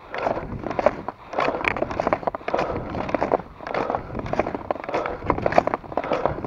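Fischer skate skis scraping and swishing over packed snow in a skating stride, with sharp clicks among the strokes, which come in a steady rhythm under a second apart.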